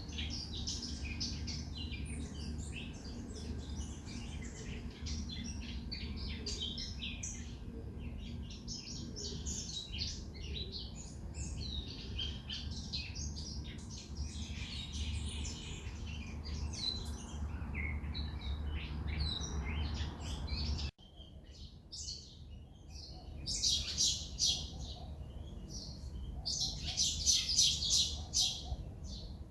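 Many wild birds chirping and twittering together over a steady low rumble. About two-thirds of the way through the sound cuts abruptly; after that the rumble is gone and closer chirps come in loud, rapid bursts, strongest near the end.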